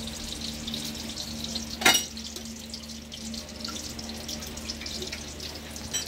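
Hot cooking oil crackling in a frying pan just emptied of fried eggs, with one sharp clank about two seconds in.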